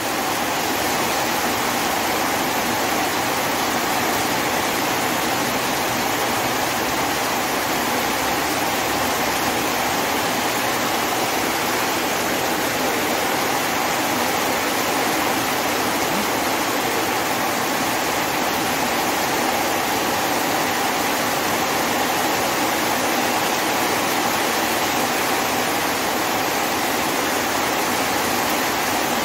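Heavy rain pouring down steadily, an even, unbroken rush of water.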